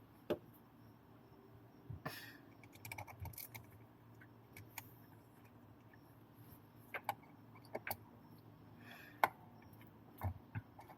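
Scattered light clicks and taps of a hand tool and small metal parts as the motor-mount screws on an RC car are put in loosely, not yet tightened. The sharpest click comes about nine seconds in.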